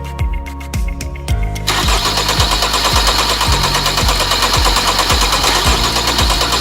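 Background music with a steady beat. About two seconds in, a loud, continuous mechanical noise with rapid fine ticking joins it and runs on past the end.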